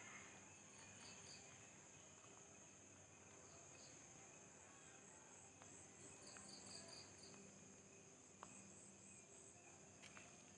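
Faint insect chorus: a steady high-pitched drone with short runs of pulsed chirps every few seconds.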